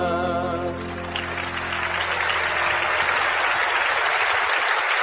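The last held chord of a worship song dies away, and about a second in the congregation breaks into steady applause.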